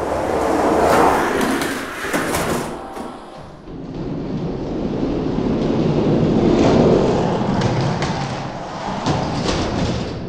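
Die-cast toy monster trucks rolling fast down a plastic orange Hot Wheels track: a dense rattling roll with clicks, swelling about a second in and again around the middle.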